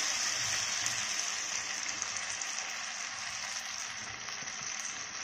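Pan of stuffed bitter gourds sizzling steadily just after tamarind-jaggery water and a little plain water were poured in. The sizzle slowly dies down.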